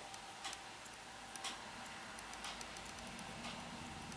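Faint ticking about once a second from a 1980s Twemco T54 mains-powered wall flip clock as it runs. The clock makes this noise only a few minutes each hour, and lubricating its motor has not silenced it.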